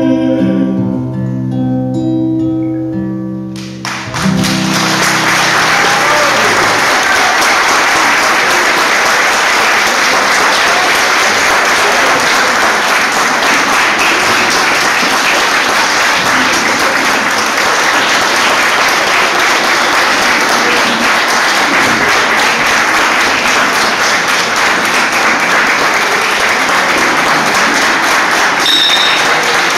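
The last held notes of a song die away about four seconds in, and an audience breaks into long, steady applause that keeps going to the end.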